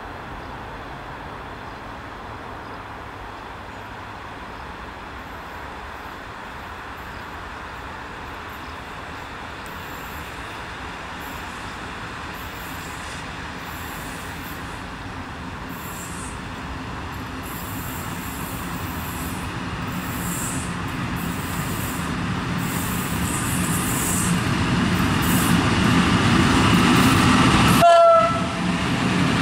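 EP07 electric locomotive hauling passenger coaches approaches along the track, its rumble of motors and wheels on the rails growing steadily louder. Near the end a brief horn sounds as it comes close.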